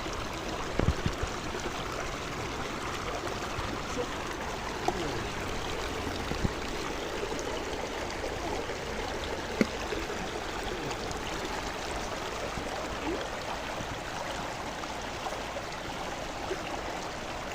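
Steady rush of flowing water, with a few short knocks scattered through it.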